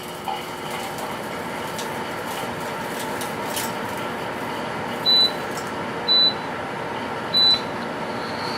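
Dehumidifier running with a steady fan whir, while three short, high electronic beeps sound from its control panel about a second apart.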